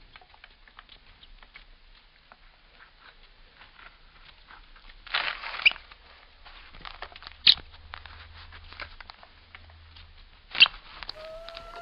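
Blue Persian cat chewing a mouse: a run of small clicks and crunches, with three louder crunches about five, seven and a half and ten and a half seconds in.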